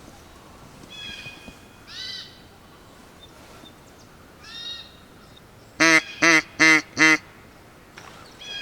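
Four loud, short duck quacks in quick succession about six seconds in. Fainter, higher bird calls come a few times before them.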